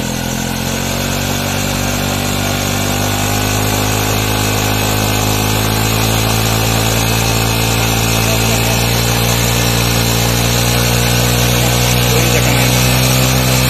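Honda CD 70 motorcycle engine, a small single-cylinder four-stroke, running steadily as it drives a tubewell pump that is being primed with water. It picks up speed slightly about a second in, then holds an even pitch.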